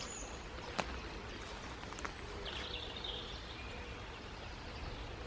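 Woodland ambience: a bird sings a short phrase of high chirps about two and a half seconds in, over a steady low background rumble, with a couple of faint clicks.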